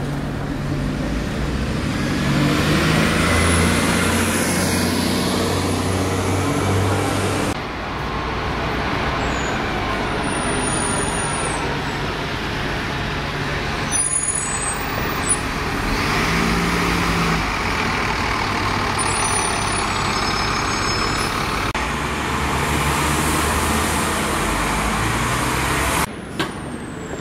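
Double-decker diesel buses pulling away and passing close in street traffic: engine running under load, a rising whine as one moves off, and several short high squeaks.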